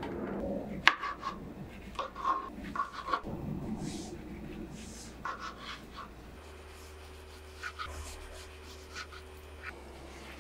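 A kitchen knife slicing fresh figs on a plastic cutting board: scattered soft taps and clicks as the blade meets the board and the fruit is handled, the sharpest about a second in. A low steady hum lies underneath.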